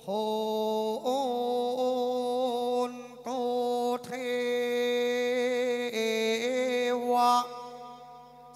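A voice chanting a ritual invocation in long, held notes that step from pitch to pitch, some with a wavering vibrato, and fading near the end.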